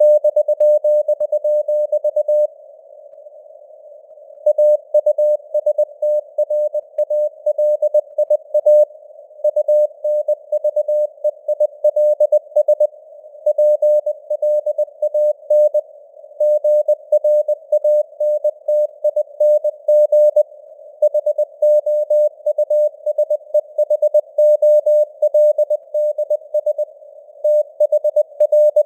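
Morse code (CW) sent at 20 words per minute: a single steady mid-pitched tone keyed on and off in dots and dashes over a narrow band of simulated radio hiss. The keying stops for about two seconds near the start, then runs on.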